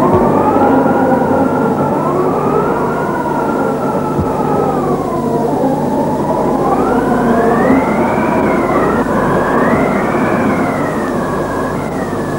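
Howling wind: whistling tones rise and fall slowly and unevenly over a steady rushing noise.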